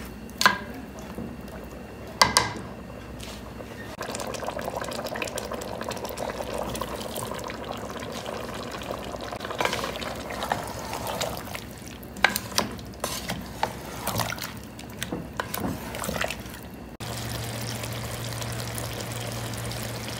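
Chicken and tomato masala cooking in a large aluminium pot: a steady wet sizzle and bubble, with a spoon knocking and scraping against the pot several times. Near the end it gives way to a steady low hum.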